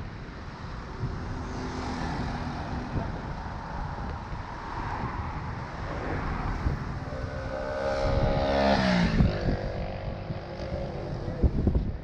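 Road traffic: a motor vehicle's engine passes close by about eight seconds in, its pitch dropping as it goes past, over a steady low traffic rumble.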